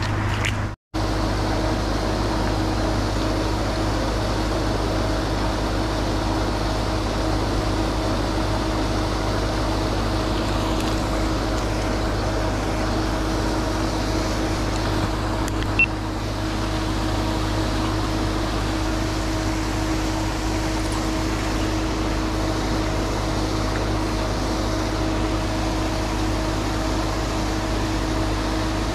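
Pond aerator running: a steady motor hum over the hiss of churned, splashing water.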